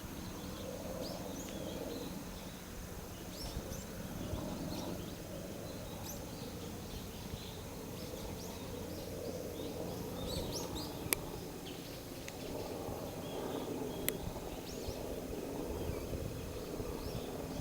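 Small birds chirping: short, high chirps scattered throughout, over a steady low background rumble, with two sharp clicks partway through.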